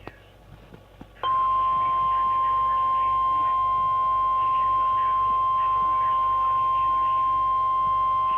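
NOAA Weather Radio warning alarm tone: a single steady high-pitched tone near 1050 Hz that starts abruptly about a second in and holds at a constant level. It signals that an urgent weather alert follows.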